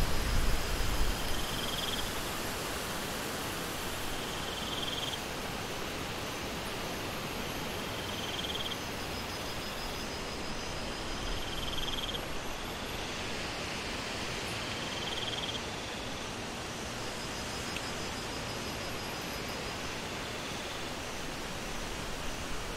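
Steady, even hiss of falling water. Over it a short, high insect chirp repeats every three to four seconds, with fainter pulsed insect trills higher up.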